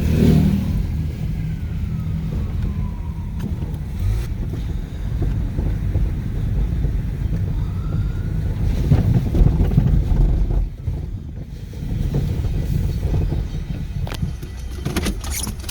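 Steady low rumble of an idling vehicle engine with wind buffeting the microphone. A faint wailing tone, like a distant siren, glides down about a second in and up again about eight seconds in. Sharp rattling clicks come near the end.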